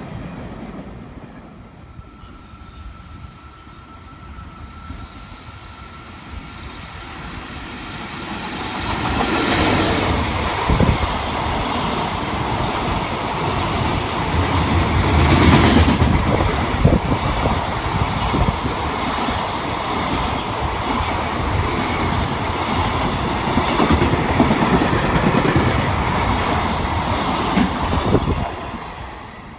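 JR Freight freight train passing close by: faint at first, the sound grows about eight seconds in into a long, loud run of wheels clattering over the rail joints, loudest midway through, then drops off sharply near the end.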